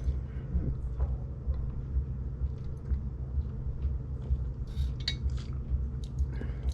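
A steady low hum with scattered light clinks and small handling noises of a soda bottle being drunk from and set down.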